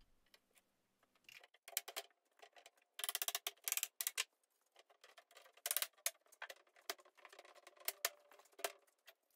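Mallet tapping on a cherry headboard frame to seat its mortise-and-tenon joints during a dry fit. The taps come in clusters, with a quick run of them about three seconds in and more groups later.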